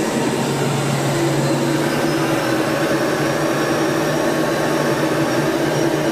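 Steady in-flight cockpit noise of a military training aircraft: engine and airflow drone with a low hum and a faint high whine, unchanging throughout.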